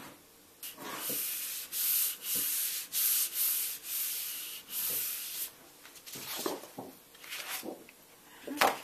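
A hand rubbing over a sheet of paper laid on a gel printing plate, burnishing it to pick up the acrylic print: about seven quick, dry swishing strokes in a row, then quieter rustles of the paper.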